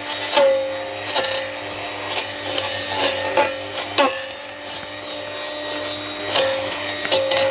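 Wild Badger 40V cordless brush cutter's electric motor whining steadily with its blade spinning, the pitch dipping each time the blade bites into woody sapling stems, with a string of sharp hits and crackles as the stems are cut.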